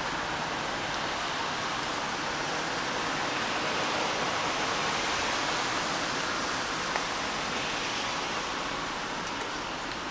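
Steady rain falling, an even hiss with a few faint drop ticks, one sharper tick about seven seconds in.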